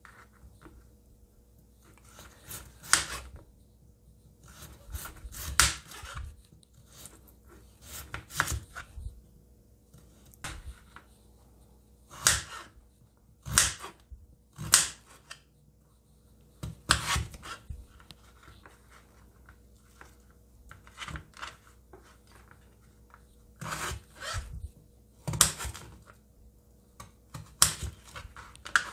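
Kitchen knife slicing raw peeled potatoes on a plastic cutting board: short sharp cuts, singly or in quick clusters, about one every second or two with brief pauses.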